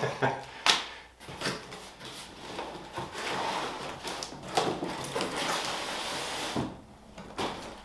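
Cardboard boxes being handled and slid out of a larger box: scraping and rustling of cardboard with a few knocks as they are set down.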